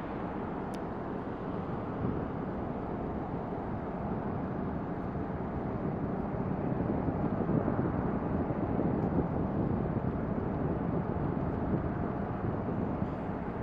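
Distant jet engine rumble from a four-engine Airbus airliner on the runway: a steady, rough noise that grows slowly louder from about six seconds in.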